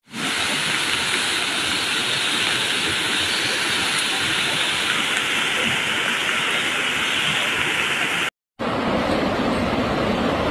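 Rushing floodwater, a steady loud rush of water. A cut just after eight seconds switches to a deeper-sounding rush of water.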